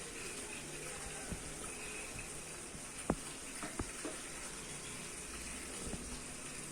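Chicken pieces cooking in a pan of masala puree with a little water: a faint, steady sizzle and bubbling, with a few light clicks about three to four seconds in.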